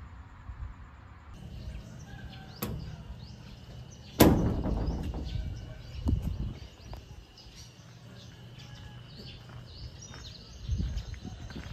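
Outdoor dawn ambience: birds chirping over a low rumble, with a faint steady high tone. A sharp knock sounds about four seconds in, with a few smaller knocks around it.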